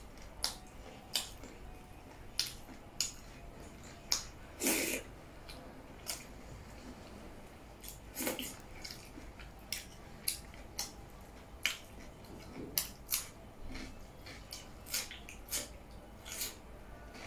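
Close-miked eating sounds: wet lip smacks and mouth clicks while chewing soft millet dhido with nettle soup, eaten by hand. The clicks come irregularly, about one or two a second, with one longer, noisier sound about five seconds in.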